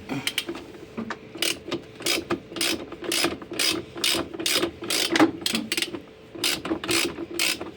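Ratchet tool clicking in quick, even strokes, about three a second with a short pause near the end, as a bolt is turned out of the washing machine's housing.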